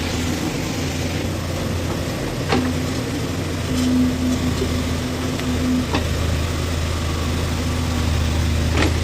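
Backhoe loader's diesel engine running steadily. A higher hum strengthens for about three seconds in the middle, and there are a few sharp knocks.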